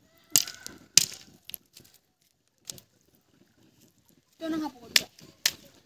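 Sharp pops and clicks from a frying pan heating over a small open wood fire: two loud ones within the first second, a few fainter ones after, and two more near the end. A short burst of voice comes in just before the last clicks.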